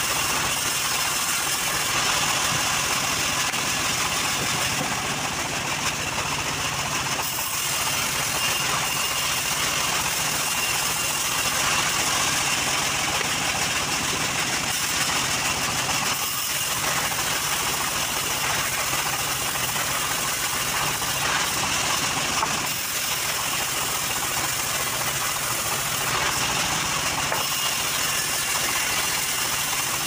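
Homemade band sawmill running steadily, its band blade ripping lengthwise through a log while the machine's drive engine runs.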